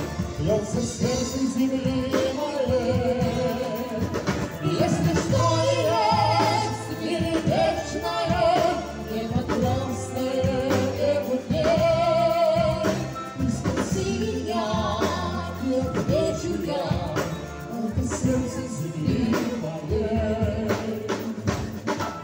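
A man singing into a microphone over band accompaniment of keyboard and drums, amplified through a PA, with long held notes sung with vibrato.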